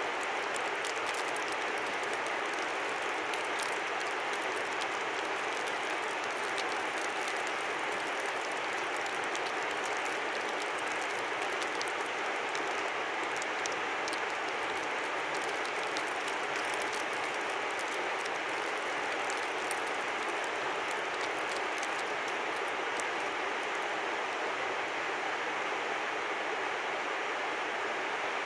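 Steady rush of a river, with a scatter of crisp high ticks over it that thin out near the end.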